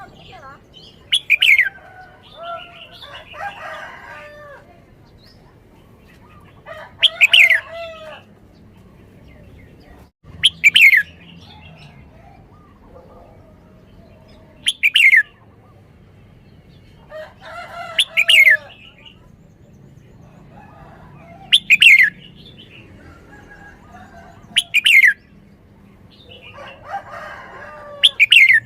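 Red-whiskered bulbul singing: loud, short phrases repeated about every three to four seconds, each with a sharp falling whistle and a lower warble.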